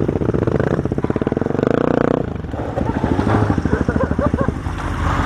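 Motorcycle engines idling close by, with a brief rise in engine speed about a second and a half in, after which the idle settles back to a slower beat.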